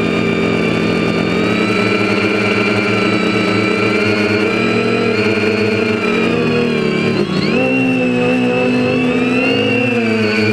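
Quadcopter's four Tiger MT2216-9 1100kv brushless motors spinning APC 9x4.7 propellers, heard from the onboard camera: a steady multi-tone whine whose pitch slides up and down with the throttle. About seven seconds in it briefly dips and swoops back up.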